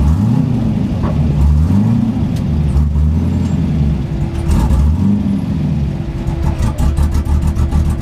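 A 5.3-litre LS V8 breathing through homemade equal-length tri-Y style headers, heard from inside the car's cabin while driving, its engine note rising and falling in several swells as the throttle is worked.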